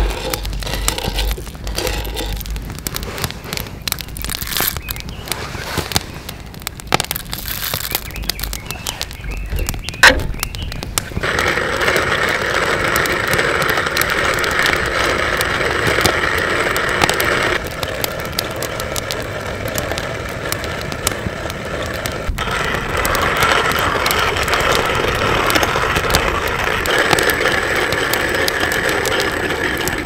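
Kalita hand-cranked coffee mill grinding coffee beans. Scattered sharp cracks and crackles come first, then about eleven seconds in a steady, coarse, crunchy grinding sets in and continues as the crank is turned.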